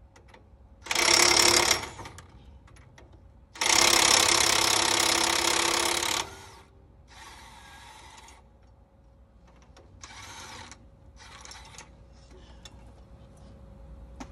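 Cordless power tool run in bursts on a bolt at a truck's front steering knuckle: a short loud run about a second in, a longer loud run from about three and a half to six seconds, then three shorter, quieter runs.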